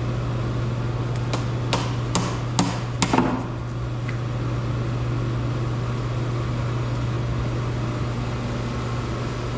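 About six sharp hammer blows in quick succession, a couple of them with a short ring, then they stop. A steady low hum runs underneath throughout.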